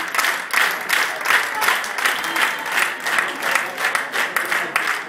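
A group of people clapping together in a steady rhythm, about three claps a second.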